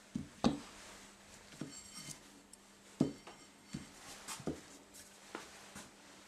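Metal parts of a dismantled Stirling-engine generator being handled and set down on a workbench: a string of light knocks and clinks, the loudest about half a second in and at three seconds, with a brief metallic ring around two seconds.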